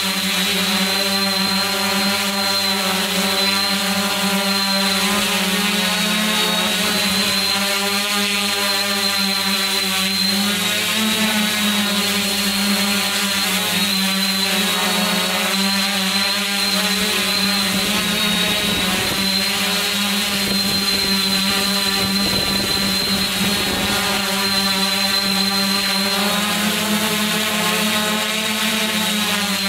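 Multirotor drone's electric motors and propellers running steadily, a layered hum and whine whose pitch wavers slightly as the motor speeds shift. A rougher rushing noise joins in for a while in the middle.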